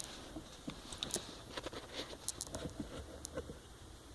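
Young puppies moving about, giving a scatter of small soft clicks and scratches.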